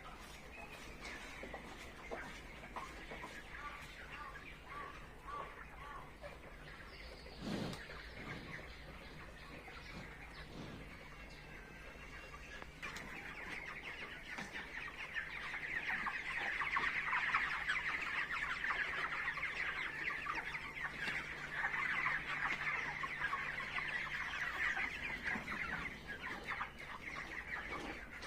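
A flock of chickens clucking and calling. A few scattered calls come first, then the calling thickens into a dense, louder chorus about halfway through.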